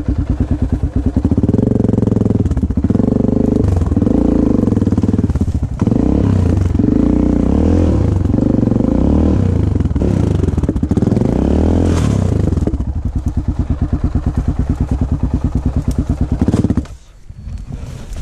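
Enduro motorcycle engine revved hard in repeated surges under load. About a second before the end it cuts out abruptly, followed by talk of the chain.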